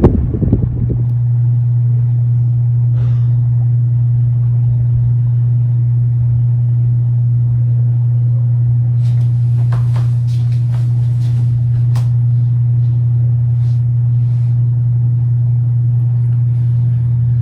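Ceiling fan motor (172 × 14 mm) running with a loud, steady low hum, plus a few faint ticks around the middle. The owner puts the hum down to a worn-out capacitor.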